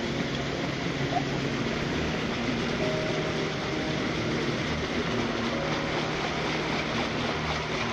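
Water spilling in a thin sheet over the edge of a stone fountain and splashing onto a metal grate below: a steady rushing splash.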